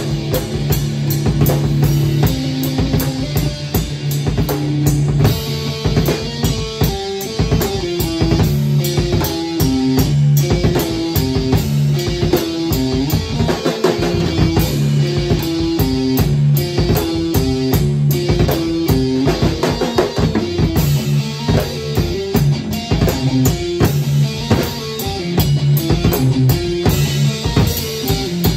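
An acoustic drum kit and an electric guitar playing together: steady drum beat with bass drum, snare and cymbals, under a repeating guitar riff.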